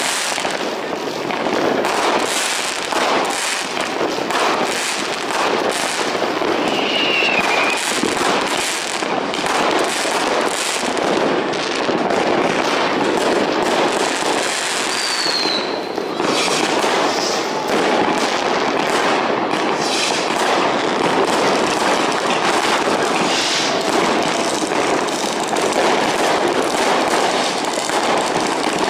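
Fireworks going off without a break: a dense crackle of many bangs and firecracker reports. A short falling whistle cuts through about a quarter of the way in, and another about halfway.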